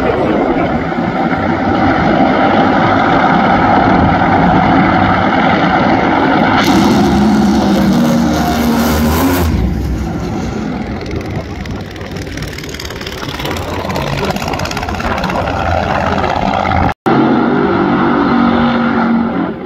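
Top Fuel Funny Cars' supercharged nitromethane V8 engines running at high power, loud, with a harsh hiss from about seven to nine and a half seconds in. The sound then drops while the car is far down the track. Near the end it breaks off and comes back loud with another pair's engines during tyre-smoking burnouts.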